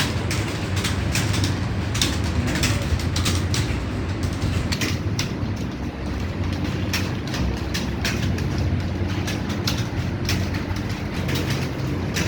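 Many computer keyboards clattering at once: a roomful of typists keying continuously, a dense stream of irregular key clicks over a steady low hum.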